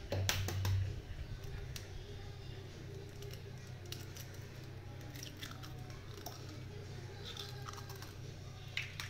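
A raw egg being cracked and its shell pulled open over a mixing bowl: a few light shell taps and clicks, with a louder knock near the start, over a steady low hum.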